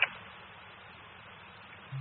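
Fire dispatch radio heard through a scanner: the channel stays open with steady static hiss and no voice. Near the end a short low thump comes as the squelch closes and cuts the hiss off.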